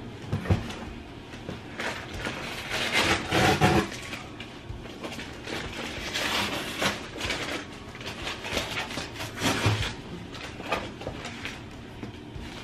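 Rustling and crinkling of kraft paper and plastic wrap, with scrapes and knocks against a cardboard box, as a taped-down packaged plant is worked loose. It comes in irregular bursts, loudest about three to four seconds in.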